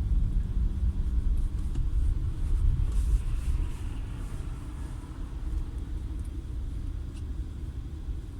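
Peugeot 408 on the move: a low, uneven rumble that is loudest for the first three seconds, then eases, with a faint click about seven seconds in.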